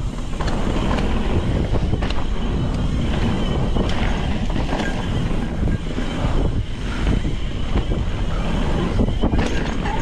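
Cannondale Scalpel full-suspension mountain bike riding down a dirt trail: steady wind on the microphone and tyre noise, with scattered knocks and rattles as the bike goes over bumps.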